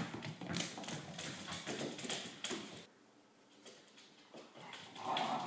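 A thrown tennis ball hitting a hard wooden floor with one sharp knock, then irregular light taps from a Spinone puppy's paws and claws on the floor as it runs after the ball, dying away about three seconds in.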